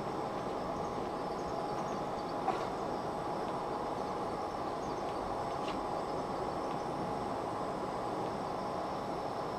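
A propane camp stove burner and an induction cooktop running side by side: a steady rushing noise with a faint steady tone through it, as two mugs of water heat but are not yet boiling. A single short click comes about two and a half seconds in.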